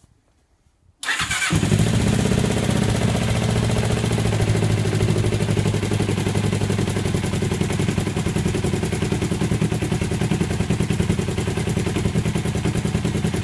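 Freshly rebuilt Kawasaki GPX250 parallel-twin engine starting about a second in, catching at once and then running steadily. Its cylinders have been bored and honed, with new piston rings and reground valves.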